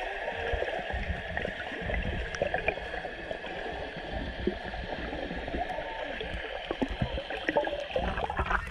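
Muffled underwater noise heard through a camera in a waterproof housing: a steady hiss with scattered faint clicks and low knocks.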